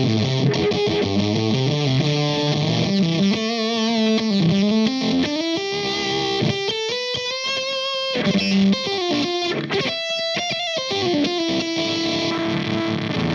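Electric guitar through the Valco Bloodbuzz pedal's fuzz, a totally destroyed fuzz tone. Riffs give way, about four seconds in, to bent single notes held with vibrato, then more riffing.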